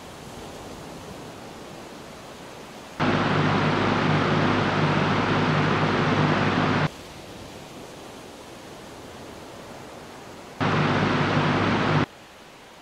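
Soft steady hiss like wind or water, broken twice by a much louder steady roar with a low hum. Each roar is cut in and out abruptly: the first lasts about four seconds, the second about a second and a half.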